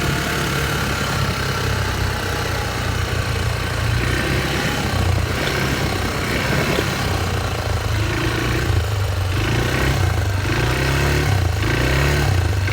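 ATV engine running under way, its pitch rising and falling with the throttle from about two-thirds of the way in.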